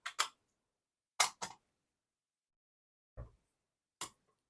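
Metal clicks and clacks of the Zastava M70's steel dust cover being fitted back onto the receiver: a pair of clicks at the start, a louder pair about a second in, then a dull knock and one more click near the end.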